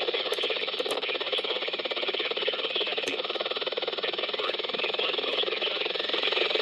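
Emergency weather radio tuned to a NOAA Weather Radio channel with weak reception: steady hiss and buzzing static, with a faint broadcast voice underneath.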